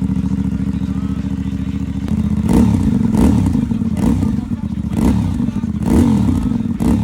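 Mondial Piega 452 motorcycle engine, on its stock exhaust, idling steadily. From about two and a half seconds in it is blipped with short throttle revs, about one a second, each rising and falling quickly.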